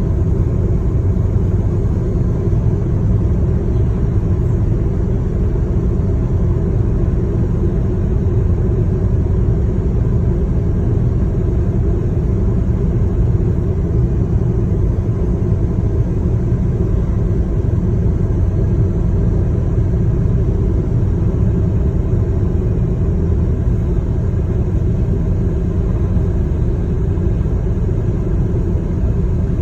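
Steady low rumble of a moving vehicle: engine and road noise held at an even level, with no changes.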